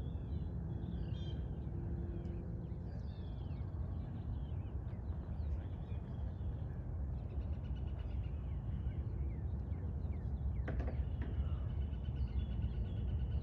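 Birds chirping and calling repeatedly over a steady low outdoor rumble, with a quick trill about seven seconds in and a single sharp knock about ten and a half seconds in.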